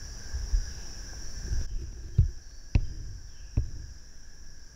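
Steady insect chorus, crickets, buzzing in the woods and fading about halfway, under low rumbling camera-handling noise. Three sharp clicks or knocks, about two to three seconds in, are the loudest sounds as the camera is turned on its mount.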